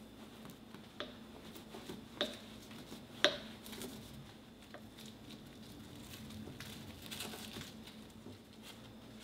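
Quiet kitchen handling: rice being pressed and spread over dried laver sheets on a wooden board, with three sharp knocks on the board, the loudest about three seconds in, and a soft rustle near the end.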